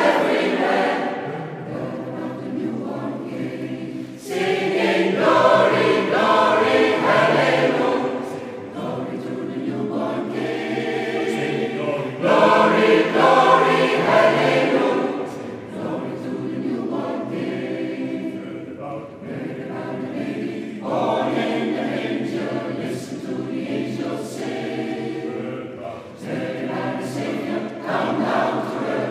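Mixed choir of men's and women's voices singing in a church, in long phrases that swell and ease off.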